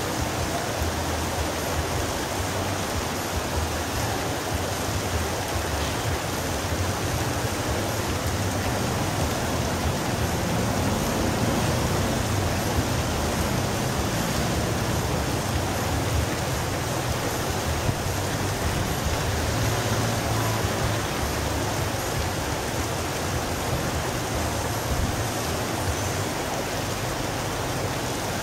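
Steady rain falling on the street and roofs, an even hiss, with a low rumble of traffic rising for a while in the middle.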